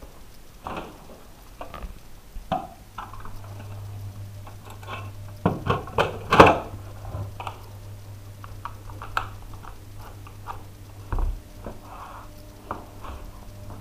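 Handling noise: a run of clicks, taps and knocks as objects are picked up and moved about on a hard floor, the loudest knocks about six seconds in, over a steady low hum from about three seconds in.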